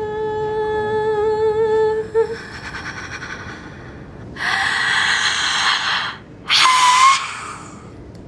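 A woman's voice making wordless sounds to express an emotion: a long hummed note that wavers at its end, then a breathy sound, a long rough cry and a short high shriek.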